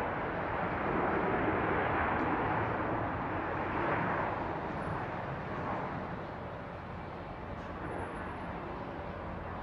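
Airbus A320-family jetliner's engines, a steady jet roar as the plane rolls down the runway, easing off somewhat about two-thirds of the way through.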